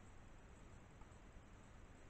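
Near silence: a faint, steady background hiss with no distinct calls or knocks.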